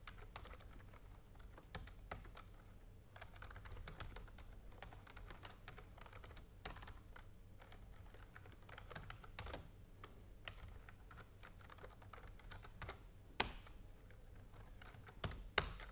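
Computer keyboard typing: soft, irregular keystrokes, with two sharper key clicks near the end.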